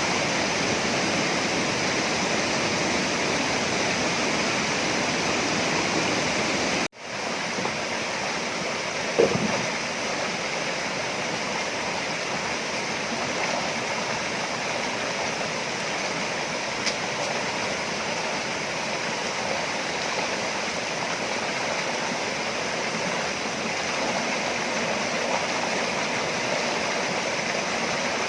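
Waterfall and stream water rushing steadily. It drops out for an instant about seven seconds in, and there is a single knock a couple of seconds later.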